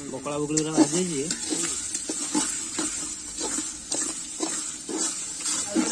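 Metal ladle stirring and scraping a spice mixture frying in oil in a large metal cooking pot, with a steady sizzle under about two or three scraping strokes a second.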